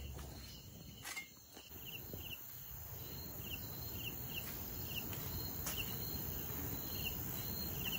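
Night insects chirping: short, high chirps repeating every half second or so over a faint, steady hiss.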